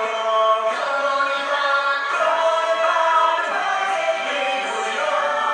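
Cartoon characters singing a French-language show tune in chorus with musical accompaniment, played through a television speaker with no deep bass.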